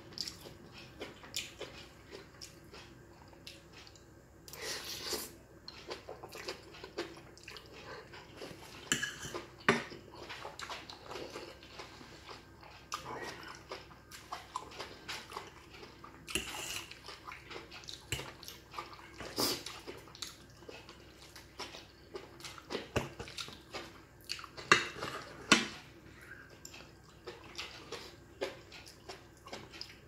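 Close-up eating sounds: noodles slurped and chewed, with a fork and spoon clinking and scraping on a plate. The slurps come as a few longer noisy bursts among many short clicks.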